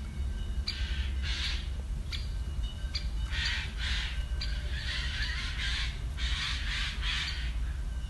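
Eurasian jays giving repeated harsh screeches, with short, sharp single calls of a great spotted woodpecker between them.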